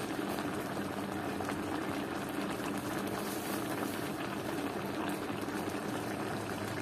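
Pork-belly and vegetable curry broth bubbling at a steady simmer in an aluminium wok, with a faint steady low hum underneath.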